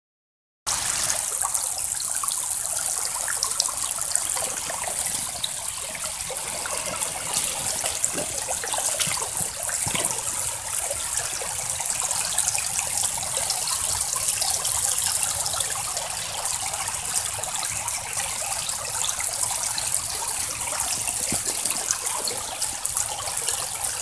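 Creek water running steadily through a sluice box, a bright even hiss with a few small clicks, starting suddenly about a second in.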